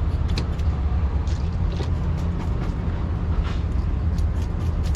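A drift boat's engine running, a steady low rumble, with scattered faint clicks and knocks over it.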